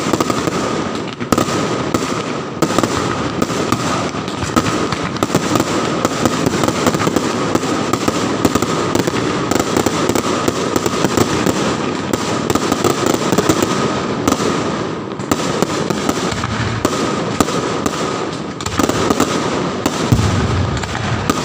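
Fireworks: a dense, continuous barrage of bangs and crackling from many fireworks going off at once, with no let-up.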